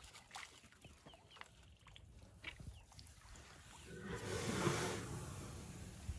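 Elephants drinking at a waterhole: small drips and splashes of water from their trunks, then about four seconds in a louder rushing, rough sound of water and air through an elephant's trunk, swelling and then fading.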